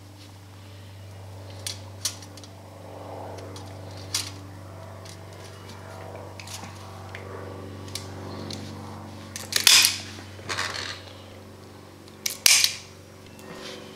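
Nylon zip ties being pulled tight through their ratchets to hold a PEX spacer on the ladder line's wires: a few light clicks of handling, then two short rasping zips about three seconds apart. A steady low hum runs underneath.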